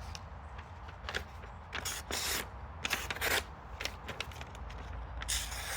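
Folding pocketknife blade slicing through paper in a few short rasping strokes, about two and three seconds in and again near the end. It is a paper test of the edge's sharpness after whittling wood.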